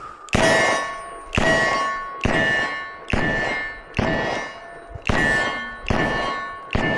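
Eight shots from a Smith & Wesson 627 revolver fired slowly for accuracy, about one a second, each a sharp crack followed by a short metallic ring.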